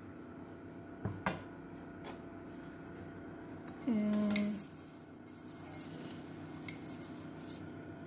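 Knocks and clinks of a metal wire whisk against a foil-lined baking tray of cake batter, two knocks about a second in and a sharp click near the middle. Between them a short low-pitched sound lasts under a second, followed by light scraping and another click.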